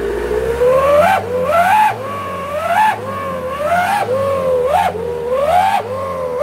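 Mitsubishi L300 pickup with a wolf-howl exhaust whistle (knalpot srigala), the throttle blipped over and over so the exhaust gives a rising howl about once a second, each falling back as the revs drop, over the engine running underneath.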